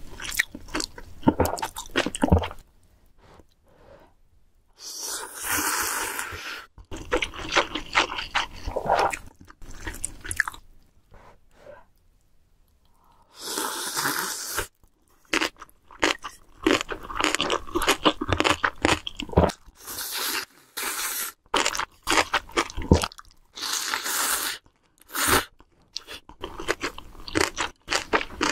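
Close-miked eating of ramen: three long slurps of noodles, about five seconds in, about fourteen seconds in and near the end, with chewing and clicking mouth sounds between them and two short quiet pauses.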